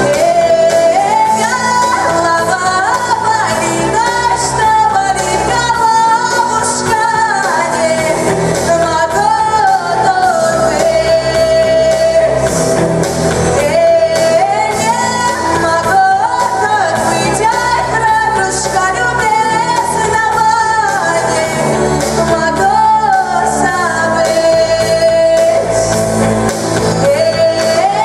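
A girl singing solo into a microphone over a recorded backing track, a pop ballad melody with long held notes.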